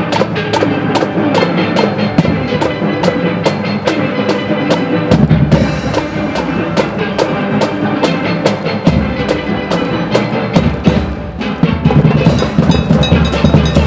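Trinidad and Tobago steel band playing: steel pans carry the tune over drums keeping a steady, quick beat. The bass comes in heavier about five seconds in, drops back, and returns near the end.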